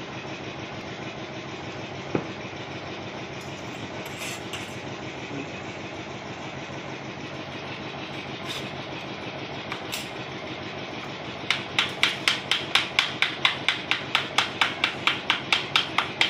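A steady engine-like drone throughout. About two-thirds of the way in, quick rhythmic scraping strokes begin, about four a second, as a hand tool is worked back and forth over a plaster mould block.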